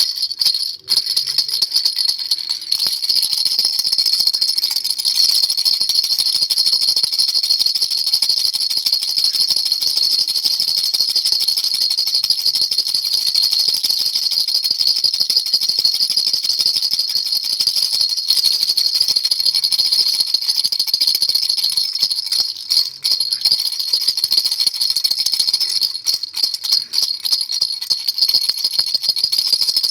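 Baby rattle shaken continuously: a dense, fast rattling with a bright, high ring, broken only by brief pauses near the start and about three-quarters of the way through.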